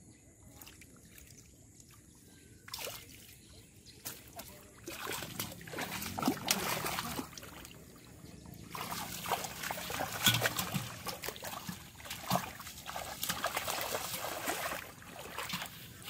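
Shallow muddy water splashing and sloshing as hands grab a fish and it struggles. Quiet for the first few seconds, then irregular bursts of splashing from about five seconds in.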